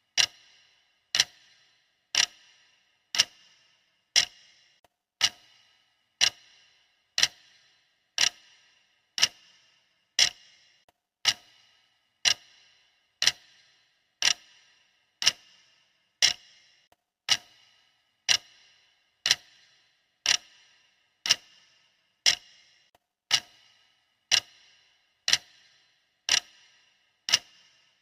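Clock ticking steadily, one sharp tick about every second, each with a short ringing tail.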